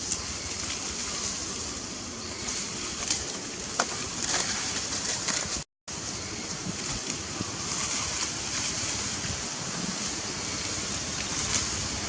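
Steady rushing noise with a few faint clicks, dropping out completely for a moment a little before six seconds in.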